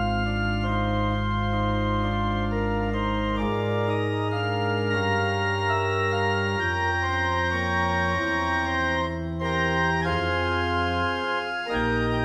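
Organ music: slow, sustained chords over a held bass, the chords changing every second or two.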